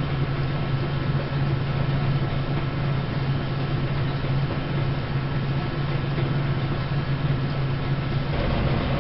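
Early-1900s Gray metal planer running a test stroke at slow speed with no cut: a steady hum from the electric motor and belt drive, with the table rumbling as it travels under the tool. The low rumble grows stronger near the end.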